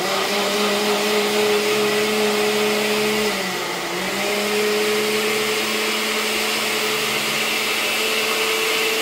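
Electric kitchen blender switched on and running with a steady motor whine. The motor pitch sags briefly about three and a half seconds in, then picks back up.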